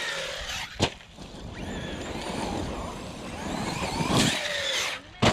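Electric RC car's motor and drivetrain whining, rising and falling in pitch with the throttle and swelling louder around four seconds in. Two sharp knocks come, one about a second in and one near the end.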